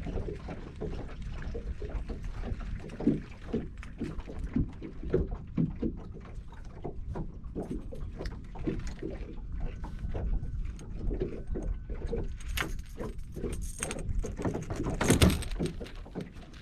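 Small waves lapping and slapping irregularly against a boat's hull, with a louder knock about fifteen seconds in.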